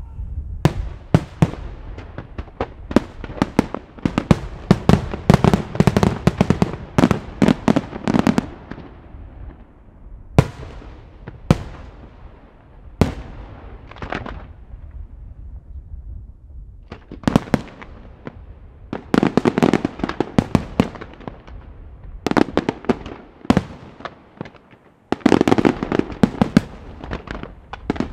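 Professional aerial fireworks display: shells and ground-launched effects firing and bursting in sharp reports. The reports come in dense rapid volleys, with sparser single bangs in between, around 10 to 16 seconds in.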